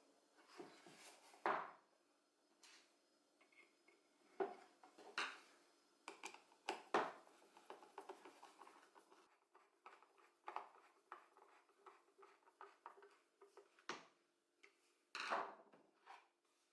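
Faint, irregular clicks and knocks of small wooden puzzle-box parts being handled and fitted together, a few of them sharper and louder.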